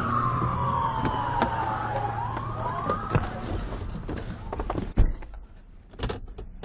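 Police car siren wailing, its pitch falling slowly, then starting to rise again before cutting off about three seconds in, over vehicle rumble. A few sharp clicks, and a loud thump about five seconds in.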